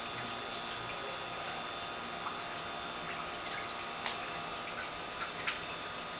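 Steady background hum of a room, with a few faint clicks and taps.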